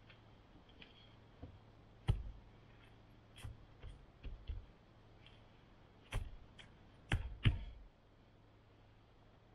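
Rocks knocking against one another as they are stacked by hand into a low stone pile: a series of dull knocks, one about two seconds in and a pair of the loudest near seven seconds.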